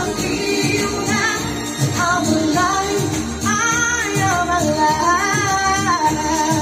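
A young man singing a pop ballad into a microphone in a high voice, close to a woman's range, holding long notes that bend in pitch, over a karaoke backing track with a steady beat.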